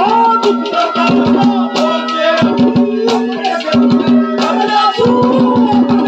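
Live Haryanvi ragni folk accompaniment: hand drums and rattling percussion keep a quick rhythm over a long held instrumental note, with a melody line above it.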